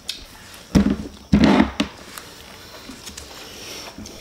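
Close-miked eating sounds as fingers pull apart a stuffed chicken roll, with two short, loud sounds about three quarters of a second and a second and a half in.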